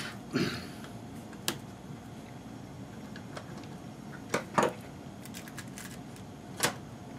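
Handling noise from the opened HP-55 calculator: a few sharp plastic clicks and taps as hands move its case and circuit board, about five in all, a duller thump about half a second in and a quick pair of clicks past the middle.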